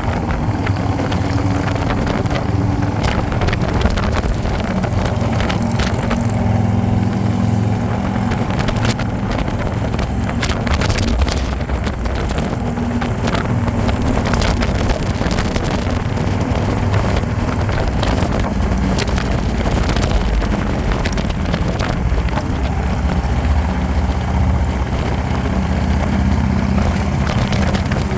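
Harley-Davidson motorcycle's V-twin engine running steadily at cruising speed, with wind buffeting the microphone.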